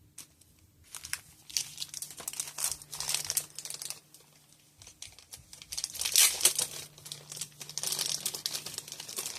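Plastic doll-accessory packaging being crinkled and torn open by hand, in two spells of dense crackling with a short lull about halfway.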